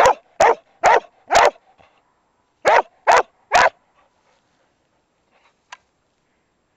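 A dog barking: four barks about half a second apart, a short pause, then three more.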